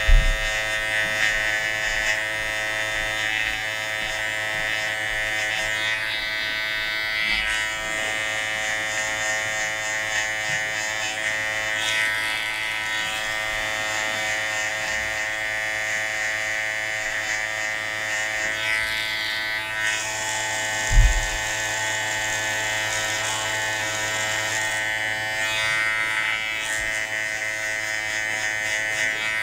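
Electric hair clipper buzzing steadily while it cuts short hair on the side of the head for a fade. Two brief low thumps stand out, one at the very start and one about 21 seconds in.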